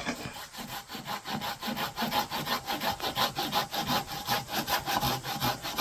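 Hand saw cutting through a woody plant stem: quick, even back-and-forth strokes, about six a second.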